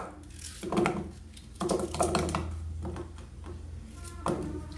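A peeled potato being cut by hand with a small knife, pieces dropping into a metal pot: irregular crisp clicks and light knocks in small clusters, over a low steady hum.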